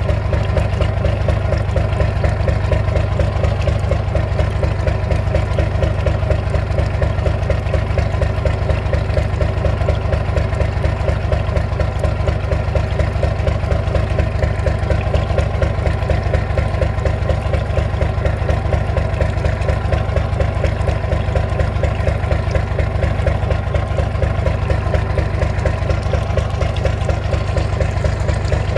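Yamaha DY37 marine engine idling steadily, with an even run of firing pulses, while water from the hull's outlet pipe splashes into the sea.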